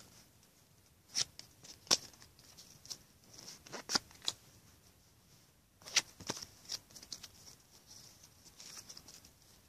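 Wrapper of a trading-card pack being torn open and the cards handled: a handful of short, sharp crinkles and rustles, separated by quiet stretches.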